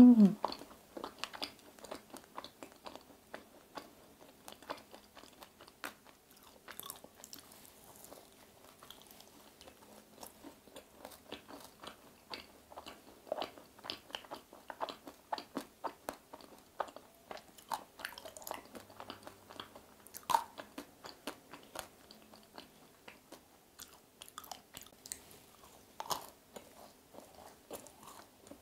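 Close-miked chewing of a strawberry cheese macaron with crunchy strawberry bits: many small crisp crackles and mouth clicks in an uneven run of bites and chews. A brief hum of the voice opens it.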